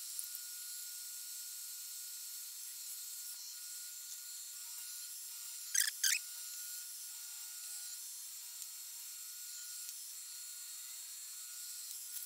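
Milling machine spindle running with a steady high whine while an end mill takes a cut on the end of a round bar; about six seconds in come two short, loud bursts of cutting noise close together.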